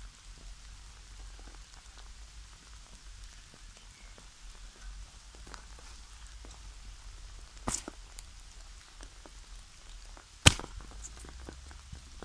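Faint crackling and ticking of a sneaker sole pressing and grinding raspberries into a polyester football shirt on grass, with two sharp clicks, one past halfway and a louder one near the end.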